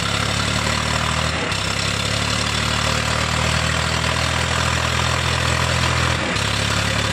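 Powertrac Euro 50 tractor's diesel engine running steadily as it pulls a loaded trailer over loose sand; its pitch dips slightly about six seconds in.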